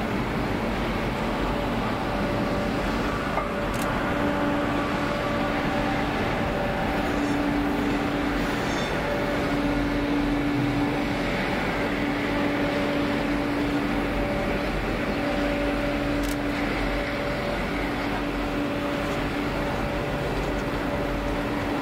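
Diesel-hauled passenger train moving slowly along the line: a steady rumble of locomotive and wheels, with a humming tone that comes and goes every second or two.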